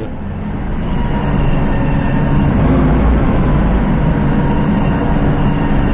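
Forklift engine running as the truck drives along, heard from inside the cab: a steady low rumble that grows a little louder over the first couple of seconds and then holds.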